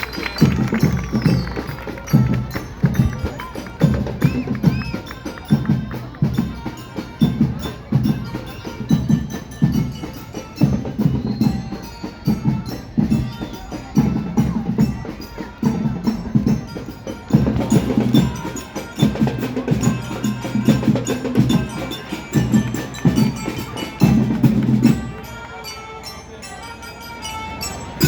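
Marching band playing, with drums beating a steady march rhythm and bell-like mallet instruments carrying the melody. The playing stops about 25 seconds in.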